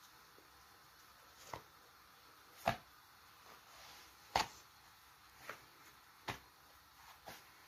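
Hand patting and smoothing thin sheets of rolled noodle dough laid one on top of another on a wooden board: about seven soft pats and swishes, the two loudest about a third and a little over halfway through.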